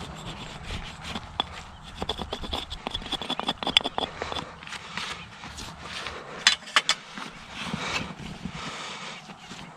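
Irregular scraping and sharp clicking of a farrier's hand tools working a horse's hoof, with a few louder clicks about two-thirds of the way through.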